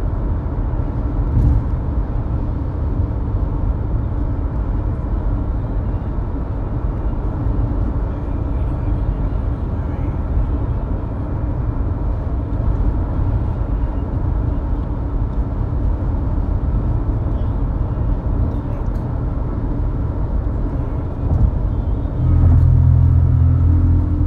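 Steady low rumble of a car driving, heard from inside the cabin. A louder low drone comes in about two seconds before the end.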